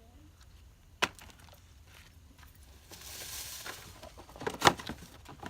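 Handling of an engine air filter and its plastic housing: a sharp click about a second in, a rustle about three seconds in, and a louder knock near the end.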